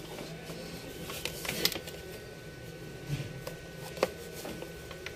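Hands handling a laptop and its power adapter cable: a few scattered light clicks and knocks with soft rustling, over a faint steady electrical hum.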